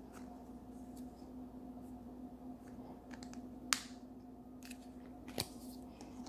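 A few sharp plastic clicks over a faint steady hum, the loudest nearly four seconds in and another past five seconds, as a Play-Doh tub is picked up and handled.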